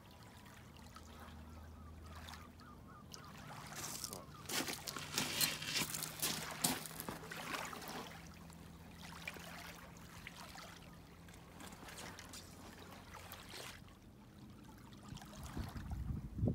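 Gentle water lapping and trickling at the water's edge, with an uneven wash that is strongest a few seconds in. A faint steady low hum runs under it and fades out near the end, and there is a brief low rumble at the very end.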